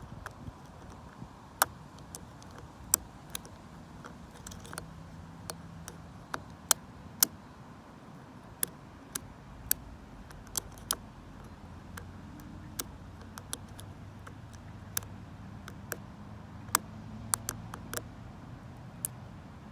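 Irregular sharp metallic clicks, about one a second, of a short hook pick and tension tool working the pin stack of a vintage Lockwood 570 oval mortise lock cylinder, over a low hum.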